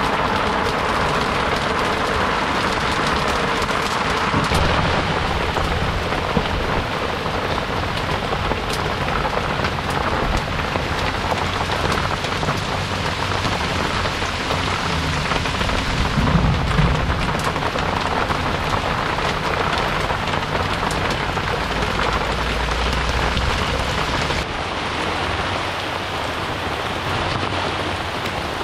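Heavy rain pouring steadily, with low rumbles of thunder swelling up about halfway through and again a little later.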